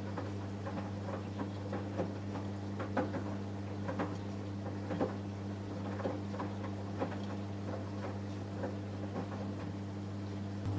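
Samsung Eco Bubble washing machine running early in a cotton wash cycle: a steady low hum with light, irregular ticking and pattering. At the very end the hum steps up louder.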